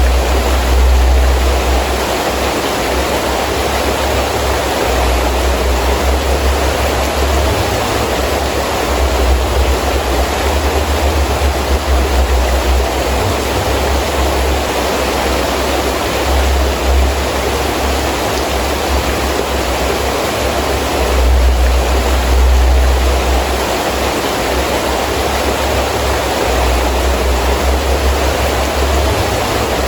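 Heavy rain falling in a steady rush, with wind gusting in low rumbling surges every few seconds.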